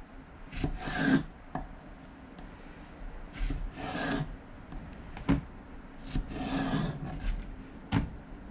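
Knife slicing okra pods lengthwise on a bamboo cutting board: three longer drawn strokes of the blade through the pods, with four sharp knocks of the knife on the board between them.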